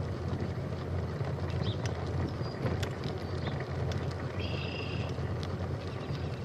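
Steady low rumble of a bicycle ride along a trail, tyre and wind noise on the microphone, with a few faint ticks. A short high-pitched chirp comes about four and a half seconds in.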